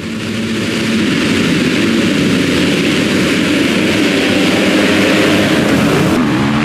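A pack of motocross bikes on a race start, many engines running hard together in one loud, steady blare.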